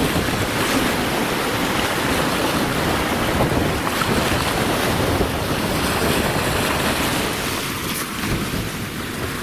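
Black Sea surf washing steadily onto the shore, with wind buffeting the microphone.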